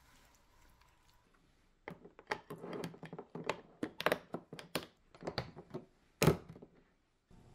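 A plastic lid being pressed down onto a square glass food-storage container: a run of sharp crackling clicks and snaps starting about two seconds in, then a single louder thump of a container set down on the counter a little after six seconds.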